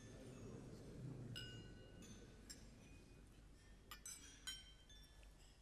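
Glasses clinking in a toast: a few faint, light clinks, each with a brief ringing tone, the last ones bunched together near the end.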